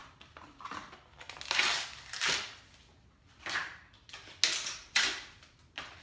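Stiff plastic and cardboard retail packaging crinkling and crackling as a new hacksaw is worked out of it. Three short, sharp snaps come in the second half.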